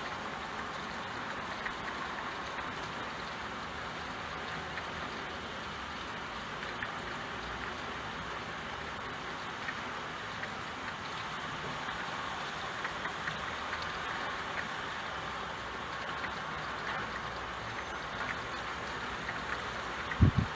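Steady rain: an even hiss with scattered drop ticks. A short low thump, the loudest sound, comes just before the end.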